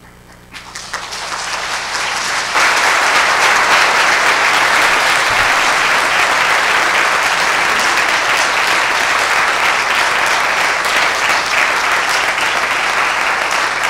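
A large audience applauding: the clapping swells over the first couple of seconds, then holds steady.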